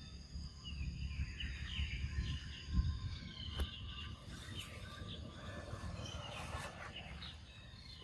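Outdoor ambience: scattered short chirping calls and a steady high insect drone over a low rumble, with a few soft clicks.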